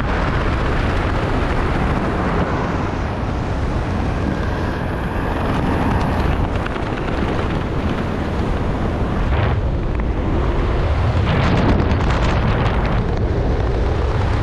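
Strong wind rushing over an action camera's microphone in flight, a steady noise with gusty flutters in the second half.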